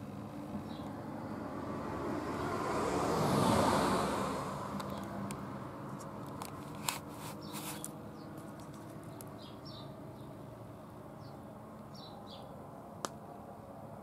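A vehicle passes, its sound swelling to a peak about three to four seconds in and then fading. Small birds chirp in short calls through the second half, and a few sharp clicks stand out, one near the end.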